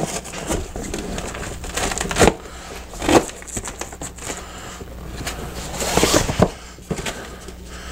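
Fabric insert panels being worked into a soft-sided car hauler bag and pressed onto its Velcro strips: scattered rustling and crackling, with short scratchy bursts, the loudest about three seconds and six seconds in.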